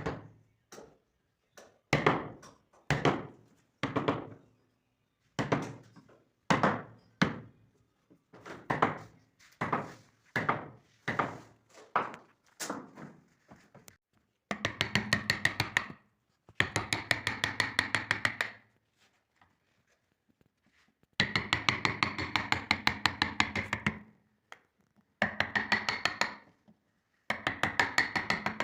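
Hand carving in wood with mallet and chisel: single sharp knocks about a second apart through the first half. Then come runs of rapid light taps, each run lasting one to three seconds.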